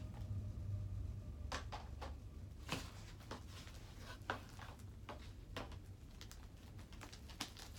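Hands kneading and stretching freshly activated glue slime, giving scattered small sticky clicks and crackles at irregular intervals, one louder than the rest a few seconds in.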